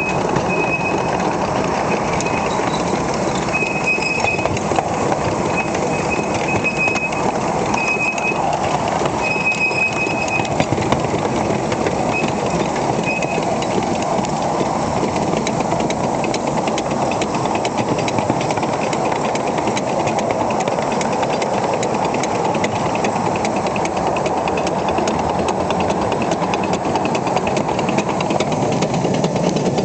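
Miniature steam locomotive running along its track, heard from on board: a steady running noise with fine rapid ticking from the wheels on the rail joints. Short high squeals come now and then during the first dozen seconds.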